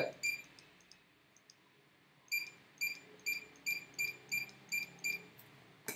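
Handheld barcode scanner beeping on each successful read: one short high beep, then after a pause a quick run of eight identical beeps, a little over two a second.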